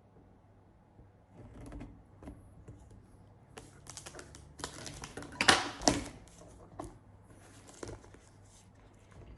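Packaging of a camera gimbal being handled and opened: scattered clicks, taps and rustles, with the busiest and loudest handling in the middle, including two sharper knocks about a second apart.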